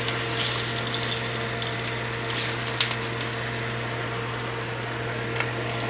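Sausages cooking hot and steaming: a steady hiss over a low hum.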